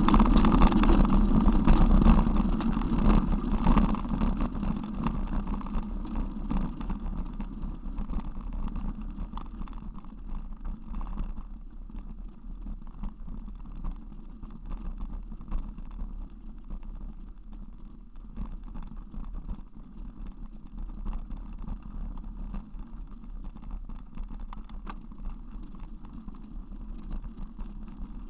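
Rumbling road noise with many small knocks and rattles from a vehicle-mounted camera jolting along a bumpy dirt farm track. It is loudest in the first few seconds, then settles lower.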